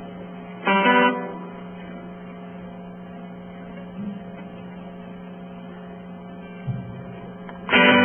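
Steady electrical mains hum, with a single acoustic guitar chord strummed once about a second in; just before the end the acoustic guitar starts playing in earnest, loud, sustained chords.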